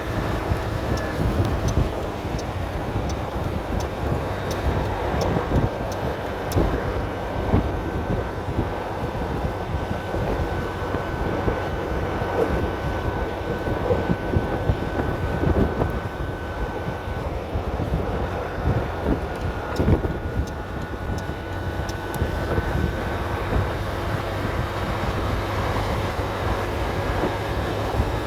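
A 300cc motor scooter running flat out at highway speed, its engine drone mixed with wind rushing over the microphone. A thin, steady whine sits above it for much of the time.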